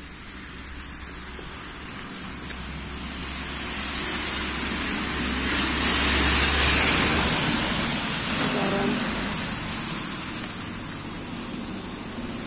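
A car passing on a wet road, its tyres hissing through the wet. The sound builds to its loudest about six seconds in, then fades away.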